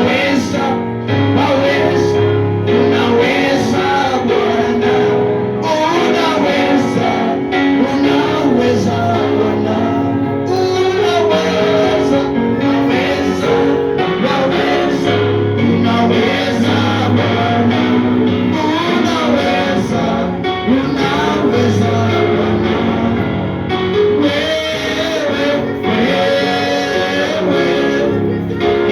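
Live gospel worship music: electric guitar and keyboard with bass, and voices singing over it, at a steady level.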